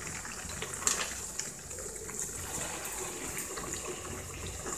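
Ragi burelu deep-frying in hot oil, sizzling and bubbling steadily as a metal slotted spatula presses them under the oil, with a short clink about a second in. The vigorous sizzle shows the oil is hot enough for the burelu to puff up.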